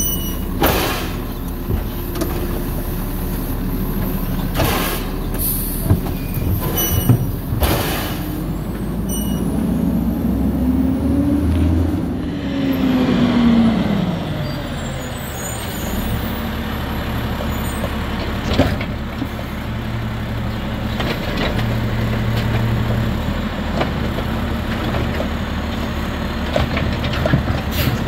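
Automated side-loader garbage truck at work: a run of sharp knocks and bangs in the first several seconds as the lifting arm grabs and dumps a cart, then the engine revving up and back down. After that comes the steady running of a second side-loader's engine as it pulls up to the curbside carts.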